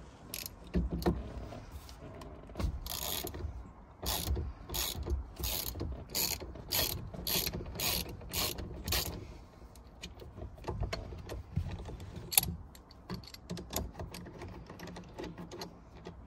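Ratchet wrench clicking in repeated strokes, about two a second, as it undoes the steering wheel's M12 multi-spline bolt. After about nine seconds the clicking thins out to fainter, scattered clicks.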